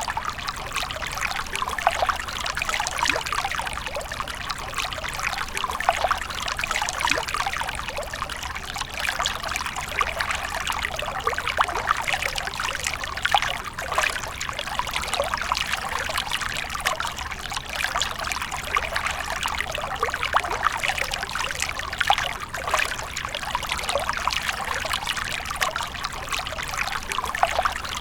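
Water fountain splashing and trickling continuously, with many small splashes and drips.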